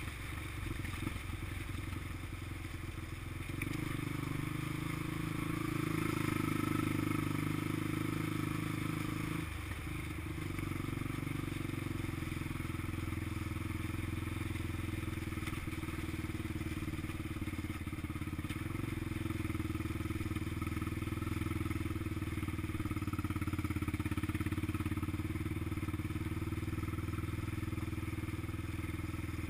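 Honda XR200 dirt bike's single-cylinder four-stroke engine running as it is ridden along a trail; the engine note swells about four seconds in and dips briefly near ten seconds before holding steady.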